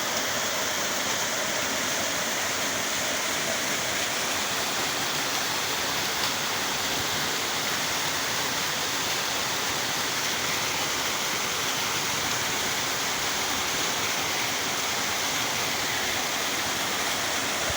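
Waterfall rushing: a steady, even noise of falling water that does not change in level.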